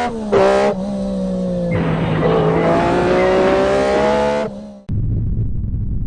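A car engine running with shifting pitch and a brief screech, cutting off abruptly about five seconds in and replaced by a low, steady rumble.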